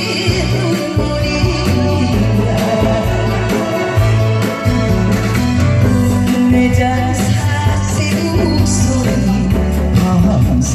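Loud trot music with a steady drum beat and melody instruments. It is the instrumental stretch of the song, with no lead vocal.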